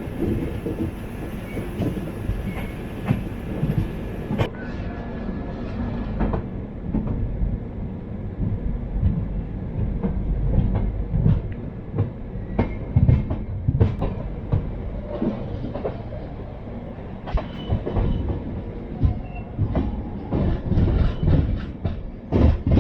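Express passenger train running on the rails, its wheels clattering over the rail joints with a steady rumble and sharp knocks, which come thick and fast near the end.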